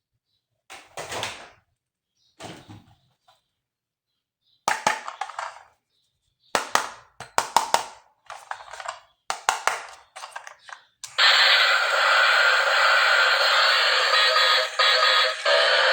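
Hard plastic toy parts clicking and clattering in several short bursts, then, about eleven seconds in, a loud steady hissing electronic sound effect starts and keeps going.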